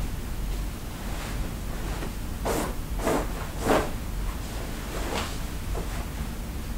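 Bedding rustling and swishing as a duvet is pulled up and smoothed over a bed: three quick fabric swishes close together in the middle and another about five seconds in, over a low steady rumble.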